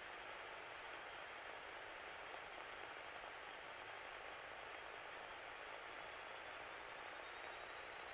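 Steady hiss with a faint, steady high tone through it, the kind of sound a light aircraft's intercom audio feed carries between transmissions; no engine beat stands out.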